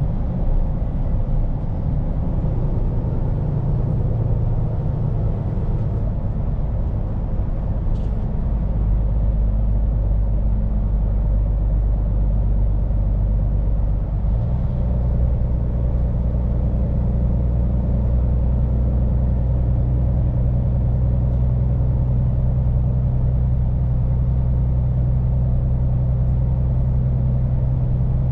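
Scania P410 truck's diesel engine running steadily as the truck drives along, with tyre and road noise. About halfway through, the engine's low hum changes and settles into a steadier, stronger note.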